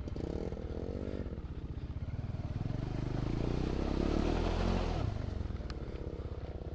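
Motorcycle engine running at low revs with a steady pulse, revving up about two and a half seconds in and easing back down near five seconds.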